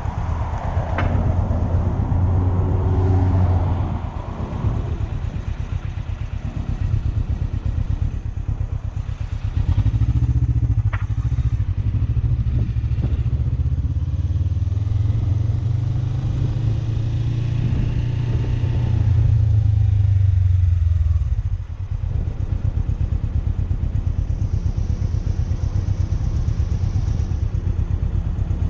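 Suzuki motorcycle engine running, with its sound swelling three times, about a second, ten seconds and fifteen seconds in, the last stretch lasting several seconds, and settling to a steadier, quieter run in between and after about twenty-two seconds.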